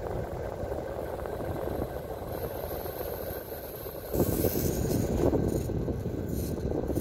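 Vintage Ritz 52-inch ceiling fan running steadily: motor hum with the rush of air off the blades, growing louder about four seconds in.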